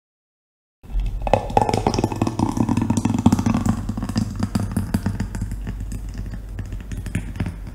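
Countertop blender running at speed, a steady motor drone with the contents churning and rattling in the jar. It starts suddenly about a second in, and the pitch of the churning falls over the next few seconds.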